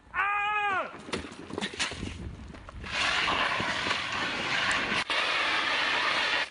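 A short, high yell that rises and falls comes first, then a few knocks. About three seconds in, a hand-held fire extinguisher starts discharging in a steady, loud hiss that stops abruptly.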